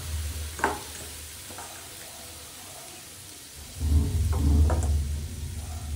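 Ragi dosa batter cooking in a hot nonstick pan on a gas stove: a light sizzle with a few short crackles, over a low rumble that grows louder about four seconds in.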